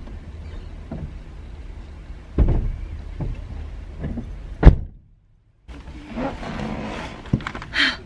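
Knocks, thuds and rustling inside a parked car as a person gets in, over a steady low rumble. One loud thud comes just past halfway, then the sound cuts out briefly, and rustling and knocks follow as she settles into the driver's seat.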